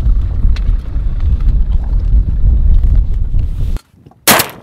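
Wind buffeting the microphone in a steady low rumble, which cuts off abruptly near the end; about half a second later comes a single loud shotgun blast.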